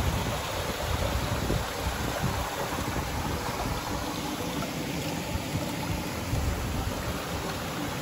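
Small forest stream spilling over a low rock step, a steady rush and splash of running water.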